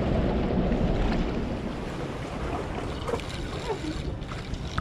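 Wind noise on the microphone over water lapping against the rocks, steady and without any single loud event.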